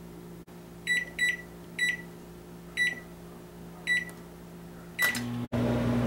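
Microwave oven keypad beeping six times at uneven intervals as buttons are pressed to set the cooking power. About five seconds in, the microwave starts up into a steady low hum.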